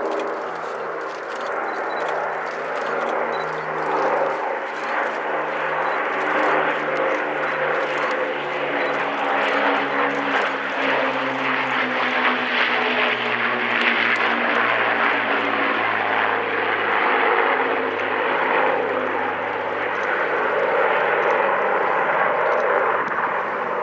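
Two Avro Lancaster bombers flying past in formation, the steady drone of their eight Merlin V12 piston engines and propellers growing louder over the first several seconds as they come overhead, with the engine note dropping slowly in pitch as they pass.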